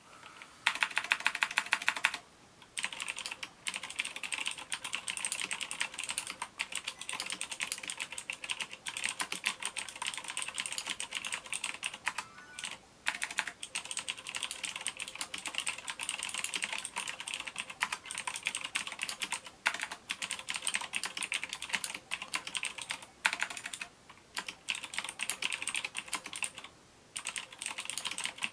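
Fast typing on a Befriend iMagic G-MASTER Custom LED mechanical keyboard with clicky blue switches: a dense stream of sharp key clicks with a few brief pauses. It opens with a quick, even run of louder clicks in the first two seconds.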